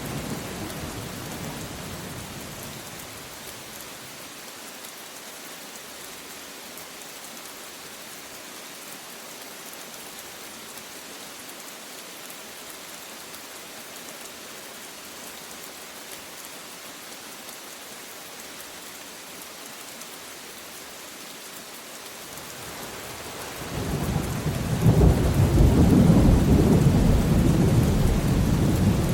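Steady rain falling with rolling thunder. A low rumble dies away over the first few seconds, leaving the rain hiss alone. About 23 seconds in, a louder peal of thunder swells up and keeps rumbling.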